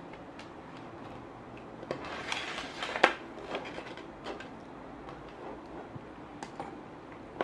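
Plastic multimeter test leads and a power cable being handled on a tabletop: a run of small clicks and rustles, the sharpest click about three seconds in, and a few more near the end.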